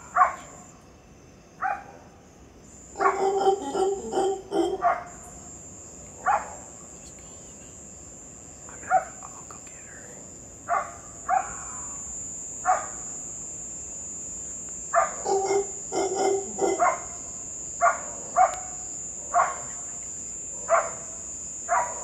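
An animal's short, sharp barking calls, one every second or two with two quick runs of several, over a steady high-pitched insect trill.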